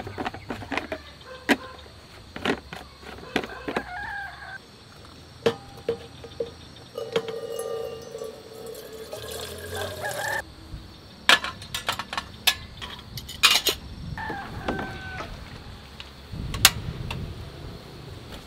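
Water running from the tap of a plastic jerry can into a small metal kettle for about three seconds, rising in pitch as the kettle fills and stopping suddenly. Sharp clicks and knocks come before and after it as the can, kettle and camp gas stove are handled.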